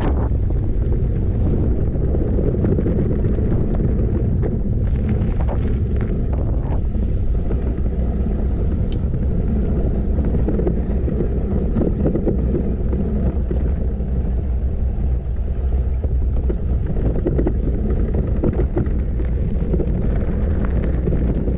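Steady wind buffeting on the microphone of a moving e-bike, a continuous low rumble, with scattered small clicks and knocks.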